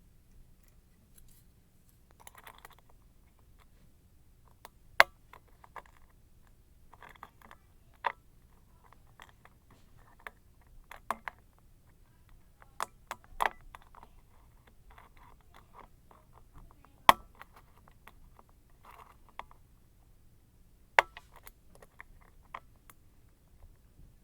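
Lock picking on an Abus 55/45 padlock: a hook pick and tension wrench scraping and tapping in the keyway. Scattered sharp metallic clicks are heard throughout, a handful of them much louder than the rest, with soft scratching between.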